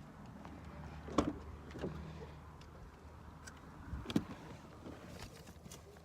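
A few sharp knocks and clicks of someone getting into a car, the strongest about a second in and two close together around four seconds in, over a low steady hum.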